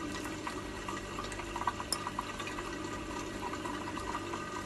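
Steady trickle of water from an aquarium filter, with scattered small clicks of crab shell being picked apart by hand.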